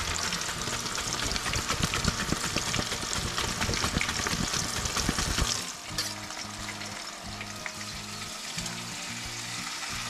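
Raw banana slices deep-frying in hot oil in a wok: a dense, crackling sizzle that drops away abruptly about six seconds in, leaving a quieter, steady sizzle.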